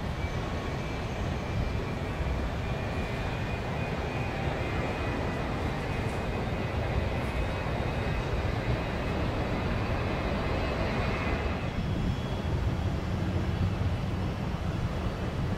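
Jet airliner engines running: a steady engine noise with a faint high whine, which fades about twelve seconds in as a steady low hum takes over.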